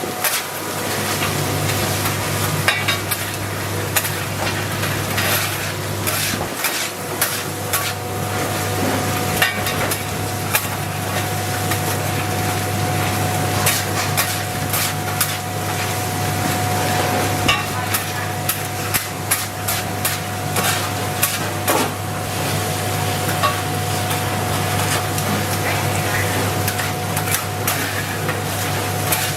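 Street-food cooking: frequent metal clicks and knocks of a utensil against a pan as food is stirred and fried, over a steady low hum.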